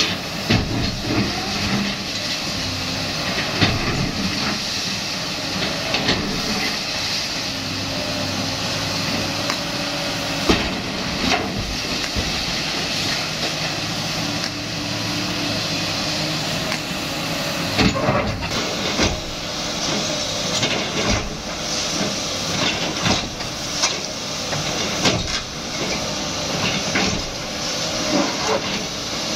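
Sany SY215C hydraulic excavator running hard with its bucket breaking and dragging concrete from a wall, a steady engine-and-hydraulics noise broken by frequent knocks and crashes of falling rubble.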